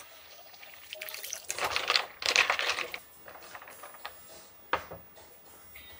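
An iced highball in a glass stirred with a wooden stirrer: ice and liquid sloshing in bursts about one to three seconds in. A single sharp click comes near five seconds.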